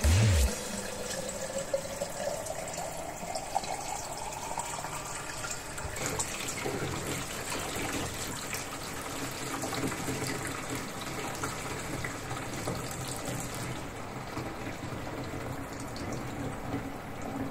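Water running from a kitchen tap into a glass pitcher, with a rising note over the first several seconds as it fills. After that, water is poured from the pitcher through a funnel into the tank of a sofa-cleaning extraction machine, a steady splashing pour.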